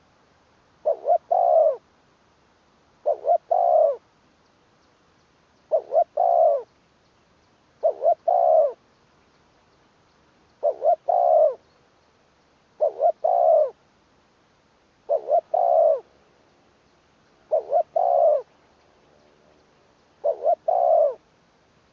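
Spotted dove cooing over and over: a phrase of two short notes then a longer one, repeated about every two and a half seconds.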